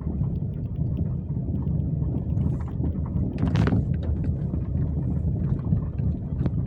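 Car driving with a steady low road rumble and repeated short knocks from the right front suspension strut, the knocking of a worn strut that has been said to need replacing.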